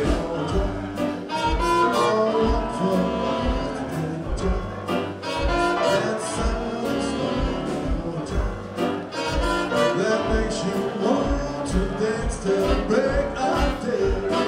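Live jazz band playing, with saxophones and brass over upright bass and a steady beat.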